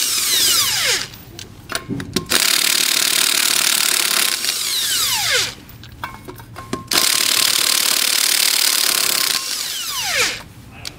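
Impact wrench spinning trailer lug nuts off with a 19 mm socket, in three long runs, each trailing off in a falling whine as the trigger is let go. Short metal clicks fall in the gaps between runs.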